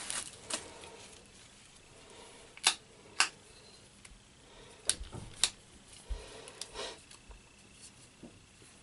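Sharp clicks and knocks from a metal-and-plastic camera clamp mount being handled, its parts worked by hand: four louder clicks in two pairs, each pair about half a second apart, then a few softer ones.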